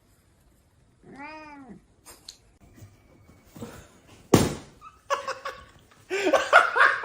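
A domestic cat meows once, about a second in, in a single call that rises and then falls in pitch. A sharp knock follows a few seconds later, and busier sound comes near the end.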